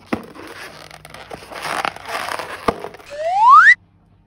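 Crackling, crinkling handling noise from slime-filled balloons, with a few sharp clicks. Near the end comes a loud rising squeal that climbs steadily in pitch for about half a second and then cuts off suddenly.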